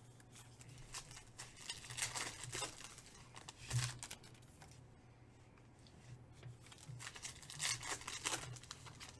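Foil trading-card packs being torn open and crinkled by hand, in several short rustling bursts with a quieter spell in the middle.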